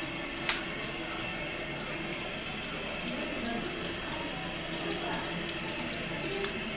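Bathroom sink faucet running steadily, a thin stream of water splashing into the basin, with a single sharp click about half a second in.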